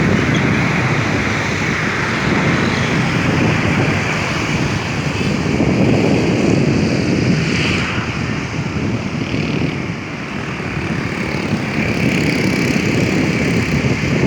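Steady wind rumbling on the microphone over a low drone of a tugboat's engine and wash of river water.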